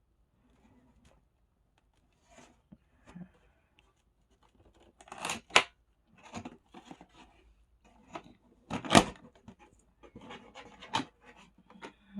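A cardboard box being opened by hand: scattered scraping, tearing and rustling of cardboard and packaging, with sharper, louder rips a little after five seconds and about nine seconds in.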